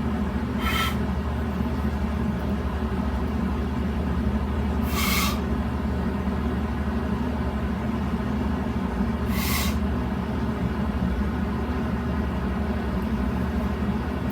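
A steady low rumble, with three short, breathy higher sounds about four to five seconds apart.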